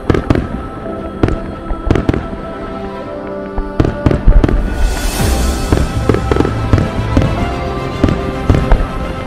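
Fireworks display: aerial shells going off in a quick string of sharp bangs, with a hissing crackle of bursting stars about five seconds in, over steady background music.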